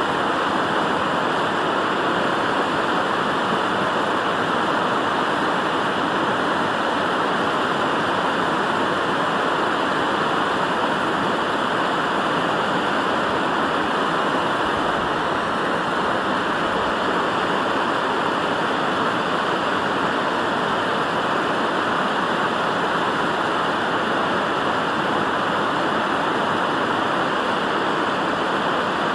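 Fumarole in Yellowstone's geothermal ground, its gas and steam vent hissing with an even, unbroken rush.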